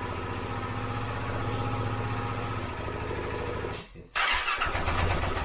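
Freshly rebuilt KTM 690 single-cylinder engine running steadily, cutting out about four seconds in, then a louder, rough burst as it is cranked and fired again.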